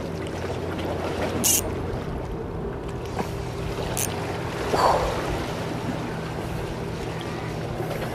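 Steady low motor hum of a boat out on the water over wind and sea noise, with a few sharp clicks and a short louder rustle about five seconds in.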